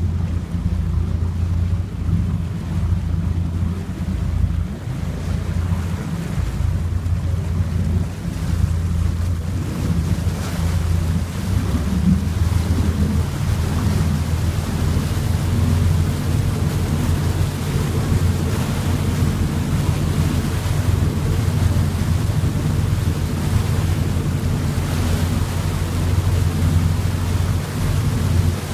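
Motorboat under way: the engine runs steadily, with wind buffeting the microphone and the rush of water from the wake. The wind and water noise grows louder about ten seconds in.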